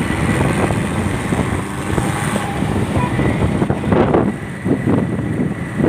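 Wind buffeting the microphone and the steady rumble of a moving becak, with a few stronger gusts about two thirds of the way through.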